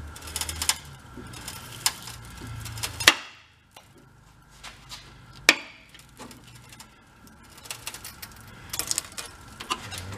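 Scattered clicks and knocks of hands working on a rusted steel truck crossmember under jack pressure, with a sharp metallic clank about three seconds in and another about five and a half seconds in.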